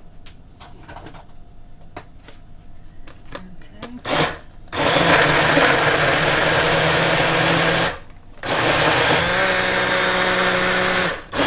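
A single-serve blender blending a fruit smoothie in pulses: a few light handling clicks, a short burst about four seconds in, then a run of about three seconds, a brief stop, and a second run of nearly three seconds that cuts off near the end.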